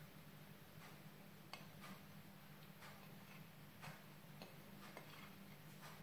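Near silence with a low room hum and faint, irregular light ticks: chopped boiled egg dropped by hand onto a layered salad and scraped off a plate.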